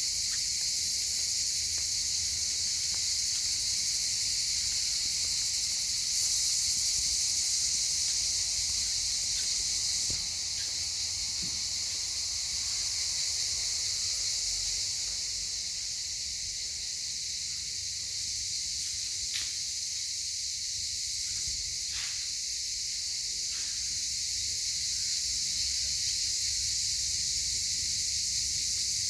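A chorus of cicadas keeps up a steady, high, continuous buzz. It grows a little louder a few seconds in and eases back about ten seconds in. A couple of faint clicks come through in the second half.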